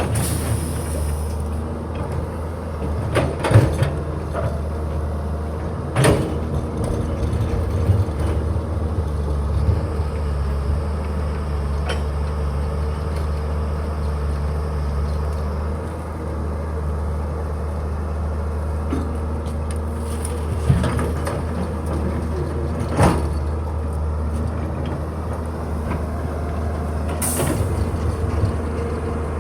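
Diesel excavator engine running steadily under load, with a few sharp metallic knocks from the machine working.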